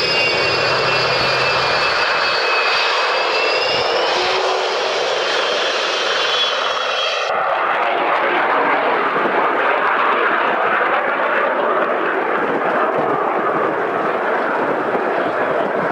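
Turbine aircraft engines running: several high whining tones over a steady roar. About seven seconds in, the whine and the highest part of the sound cut off abruptly, and the roar carries on.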